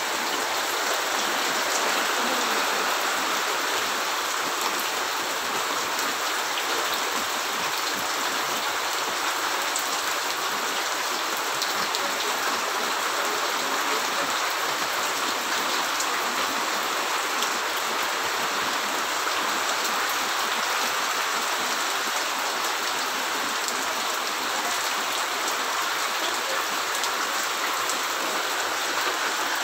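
Heavy rain falling steadily onto a flooded yard, the drops splashing into standing water. It makes a continuous, even hiss of rain with fine pattering throughout.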